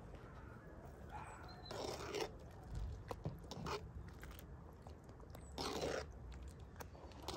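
A ladle stirring thick herb-and-noodle soup in a metal pot, scraping against the pot in a few separate short strokes.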